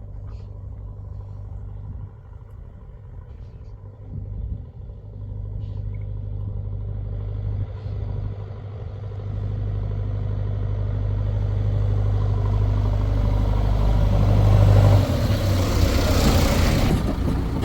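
Diesel engine of a tractor or backhoe running with a steady low drone that grows steadily louder, loudest in the last few seconds.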